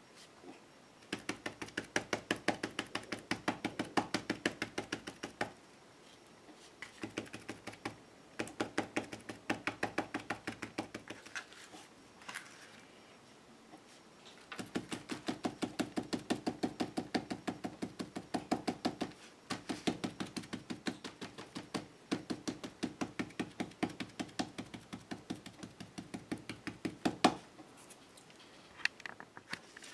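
A stipple brush dabbing rust effect paste onto an embossed cardboard page: quick runs of dry taps, several a second, lasting a few seconds each with short pauses between.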